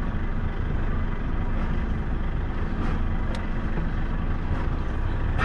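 Heavy truck's diesel engine running low and steady as the truck creeps forward along the flat wagons of a rolling-highway train while driving off it.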